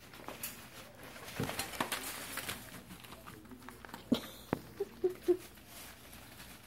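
Small dogs scuffling and playing on shredded paper and a fabric tunnel in a wire pen: rustling and patter, with two sharp knocks about four seconds in and three short high squeaks just after.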